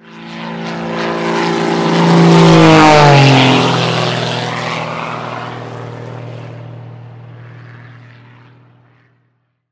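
Propeller airplane flying past: its engine drone grows louder, peaks about three seconds in, then drops in pitch as it passes and fades away.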